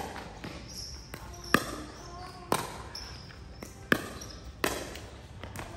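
Rally of sharp racket hits, five in all, irregularly about a second apart. Between them come short high squeaks of shoes on the court floor.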